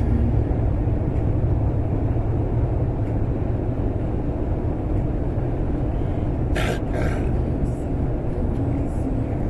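Steady low road and engine rumble inside the cab of a vehicle driving at highway speed, with two brief sharp sounds about seven seconds in.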